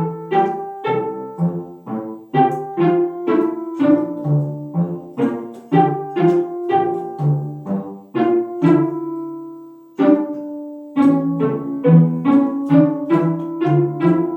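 Instrumental background music of quick, short plucked notes that ring and fade, pausing on one held note that dies away about nine seconds in before the tune picks up again.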